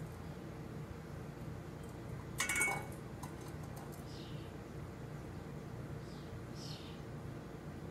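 Metal cat food bowl clanking once with a brief ring, about two and a half seconds in, as feeding starlings tip it. A bird gives short falling chirps twice later on.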